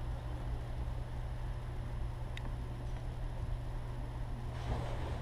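Steady low outdoor rumble on the camera's microphone, with one faint sharp click about two and a half seconds in and a brief rustle near the end.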